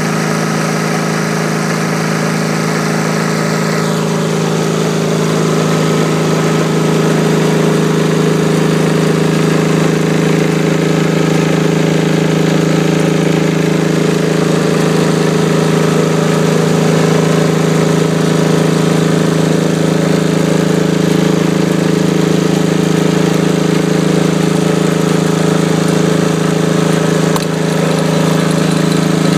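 Hatz diesel engine of a Bundeswehr Kirsch 1.9 kW 28 V silent generator set running steadily on its test run, producing voltage. It grows a little louder over the first several seconds, then holds an even, constant drone.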